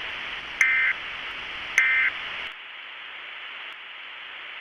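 Emergency Alert System end-of-message data tones: two short digital bursts about a second apart, over a steady static hiss that drops quieter about two and a half seconds in.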